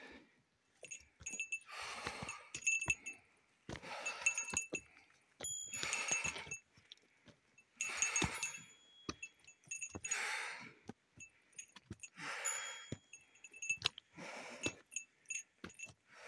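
A hiker breathing hard on a climb, one heavy breath about every two seconds, while a small metal bell tinkles between breaths.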